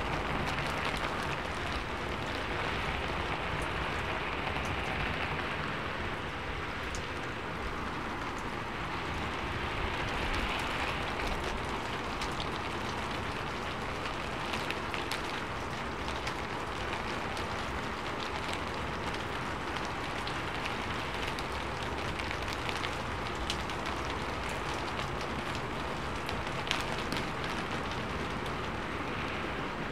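Steady rain on a sheet-metal roof: a continuous hiss with many sharp ticks of single drops striking the metal.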